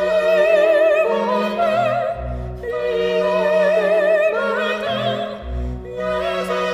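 Background music: a woman's operatic voice singing with wide vibrato over an orchestral accompaniment with a pulsing low bass.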